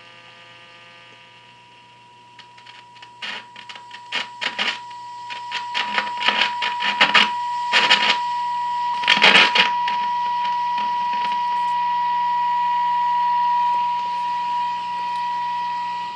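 A 1948 Westinghouse H-204A tube radio's speaker reproducing a signal generator's steady test tone over a low hum, with bursts of crackling static while its A5 alignment trimmer is turned. The tone starts faint and grows much louder as the trimmer is brought to peak, which marks the best-signal point of the AM alignment.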